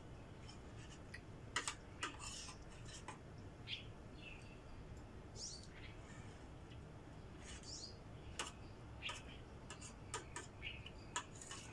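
Faint, scattered clicks and clinks of spoons and forks against plates during a meal, with short high chirps now and then between them.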